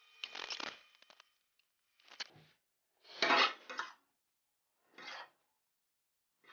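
Forks scraping and clinking on a large ceramic plate as the last noodles are gathered up, in four short bursts, the loudest about three seconds in.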